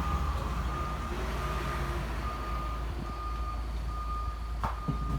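Repeating electronic beep at one steady pitch, roughly one beep a second, like a vehicle's reversing alarm, over a low steady hum; a sharp click near the end.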